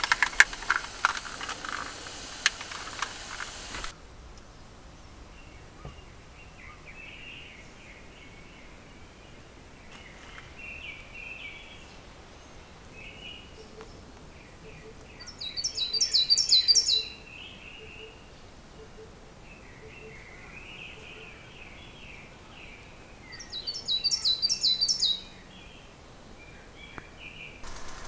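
Forest birds singing: scattered chirps throughout, and two loud, fast trilled songs of about a second and a half each, one just past halfway and one near the end. The first few seconds hold clicks over a hiss.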